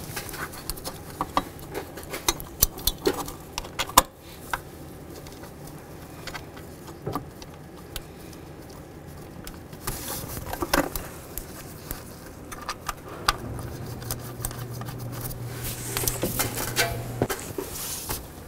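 Scattered light metallic clicks and taps of bracket bolts and hand tools being handled as the bolts are threaded in by hand. A low steady hum comes in for a few seconds in the second half.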